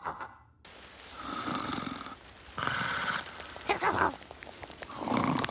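Cartoon snoring: about four slow, breathy snores in a row, each swelling and fading with a short pause between them.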